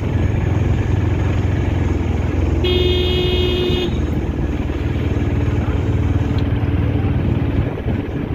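Auto-rickshaw engine running steadily with road noise while riding. A vehicle horn honks once for about a second, roughly a third of the way in.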